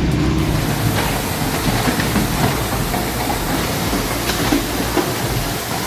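Industrial shredder running under load, a dense steady grinding noise with scattered cracks and crunches from material being torn apart.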